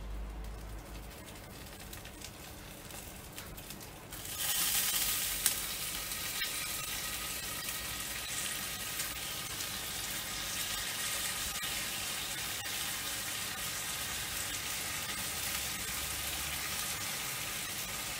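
Barbecue glaze sizzling as it is brushed onto a rotisserie turkey crown over a hot charcoal kettle grill. The steady sizzle starts about four seconds in, with one sharp tick shortly after.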